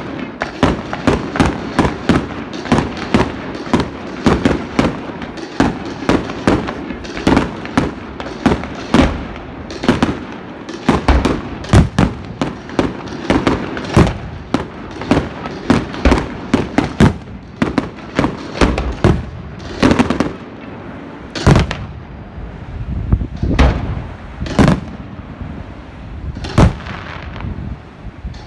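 Fireworks display: a rapid, dense barrage of crackling bangs from bursting shells, several a second, thinning out after about twenty seconds into fewer, louder booms.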